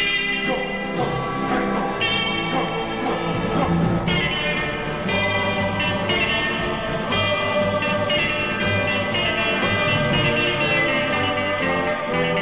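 Music track with plucked guitar.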